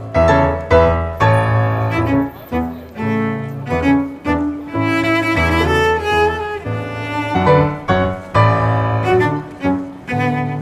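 Background music with bowed strings and piano, moving in short notes that change about every half second.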